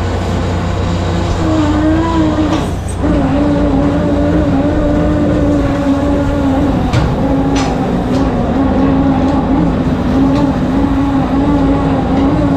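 Steady low rumble of a shrimp trawler's machinery while under way, with a slightly wavering mechanical hum that comes in about a second and a half in, drops out for a moment near three seconds, then holds steady.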